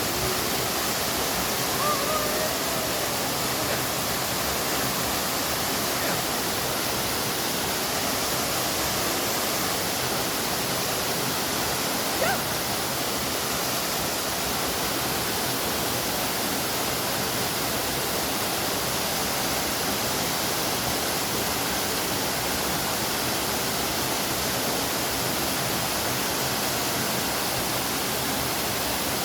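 Waterfall: a steady, even rush of falling water, with one short tick about twelve seconds in.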